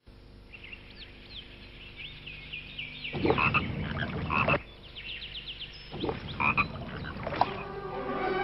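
Marsh wildlife sounds: high chirping birdsong, then two loud, rough pulsing calls, the first about three seconds in and lasting a second and a half, the second about six seconds in.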